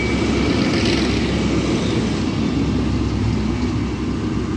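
Class 73 electro-diesel locomotives hauling a test train away on diesel power: a steady engine drone under the rumble of coaches rolling past close by.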